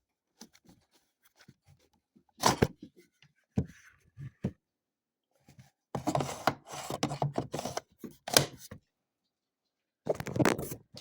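Handling noise from a cordless chainsaw battery pack being taken out: a few sharp plastic knocks and clicks, then a spell of clattering and scraping, with more near the end.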